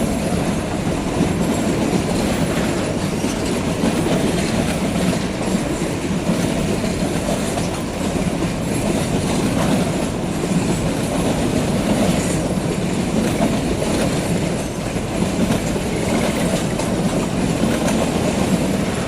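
Empty freight train rolling past close by: a steady, loud rumble of wagon wheels on the rails with some clickety-clack.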